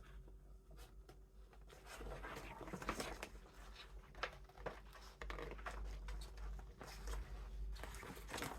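Scissors cutting through a gift bag along its seam: a series of short, irregular snips, with the bag rustling and crinkling.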